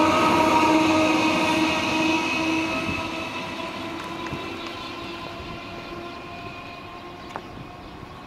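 A Class 315 electric multiple unit moves away. Its motors whine in several steady tones over the running noise, and the whole sound fades steadily. A single sharp click comes near the end.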